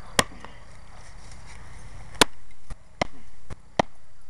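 M48 tomahawk blade chopping into a small tree's trunk: about six blows at uneven intervals, one a moment in, the loudest about two seconds in, then four more in quick succession near the end.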